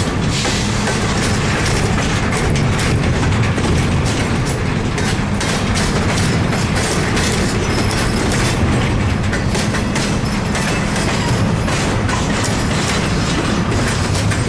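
Double-stack intermodal freight train's well cars rolling past, a steady loud rumble with wheels clicking over the rail joints.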